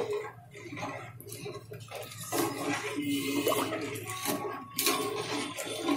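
Water with rice in it boiling and bubbling in an aluminium pot, a ladle stirring and splashing through it at the start, with scattered sharp clinks and sloshes over a steady low hum.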